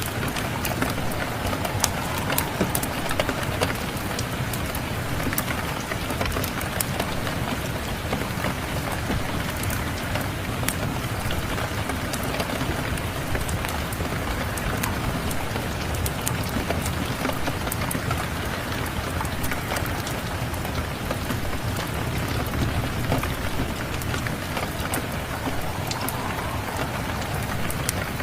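Steady rain mixed with a wood fire crackling: an even hiss of rain throughout, with frequent small sharp pops and snaps scattered over it.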